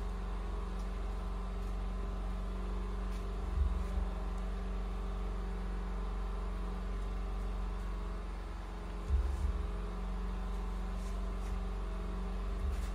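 Steady low mechanical hum, like a motor running, with a few soft low bumps about four, nine and twelve seconds in.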